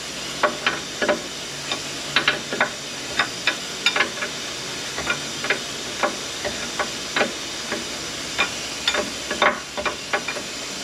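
Sharp metallic clicks and clinks at irregular spacing from hand tools working on an SM465 manual transmission, over a steady hiss.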